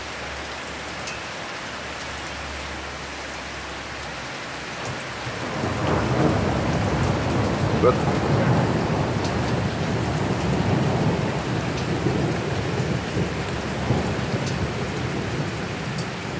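Steady heavy rain pouring down. About five seconds in, a long low roll of thunder builds, rumbles on for several seconds and slowly fades.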